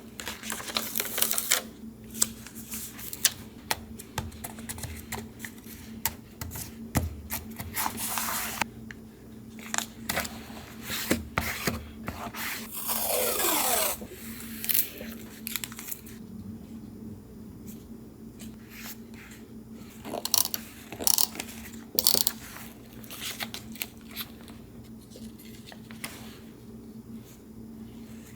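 Paper-crafting sounds at a desk: paper rustling and scraping, tearing, and the small taps and clicks of tools and sheets being handled. About halfway through there is one longer sweeping rasp that falls in pitch.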